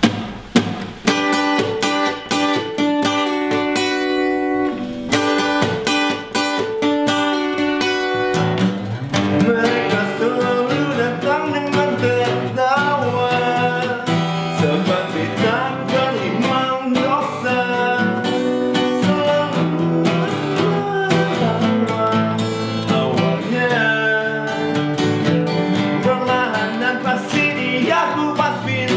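Two acoustic guitars playing an indie rock song together, with a man singing the lead in Indonesian from about nine seconds in.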